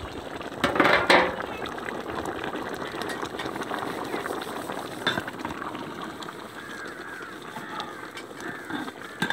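Chicken and tomato gravy boiling in a large aluminium pot over a wood fire, a steady bubbling hiss, with a loud brief burst of noise about a second in. A ladle stirs the pot near the end.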